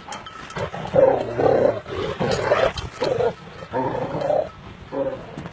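Sharr (Illyrian shepherd) dogs growling as they tussle, a run of rough growls, each under a second long.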